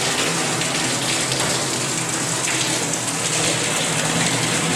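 Water running steadily from a tap into a wash sink, filling it.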